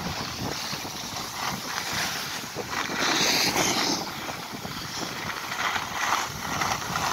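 Skis sliding and scraping over packed snow on a downhill run, mixed with wind buffeting the microphone; the hiss grows louder for about a second, three seconds in.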